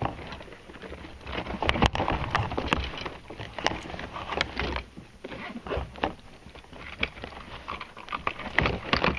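Irregular knocks, taps and rustling from handling in a kayak, scattered unevenly, over a low rumble.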